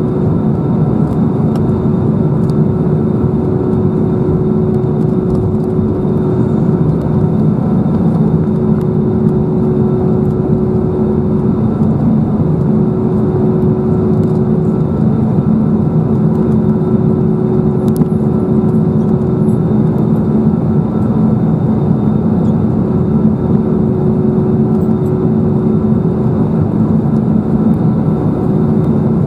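Airbus A320-214's CFM56 engines running at taxi power, heard inside the cabin over the wing as a steady hum with a constant whine on top.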